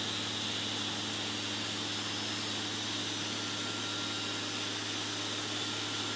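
The four brushless motors of a Quanum Venture quadcopter spinning steadily while armed on a warm-up test: an even hum and whine with a hiss on top, holding the same speed throughout.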